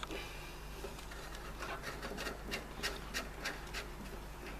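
Parts being handled and fitted by hand: a string of light clicks, about three a second, with some rubbing, over a steady low hum.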